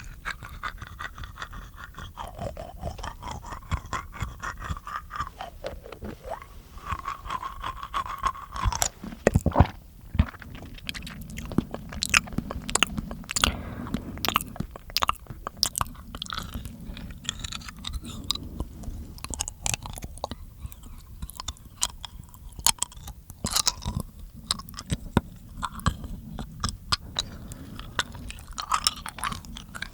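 Close-miked ASMR mouth sounds: a dense, irregular run of wet clicks, smacks and crunchy chewing-like noises from the mouth.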